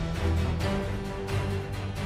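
Music with held notes and percussive hits, and no speech.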